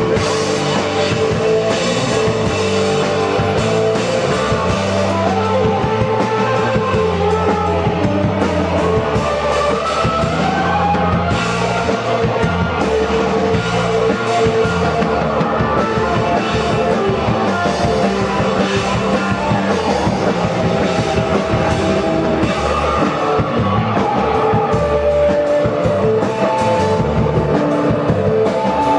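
Rock band playing live, with electric guitar over a drum kit, loud and unbroken.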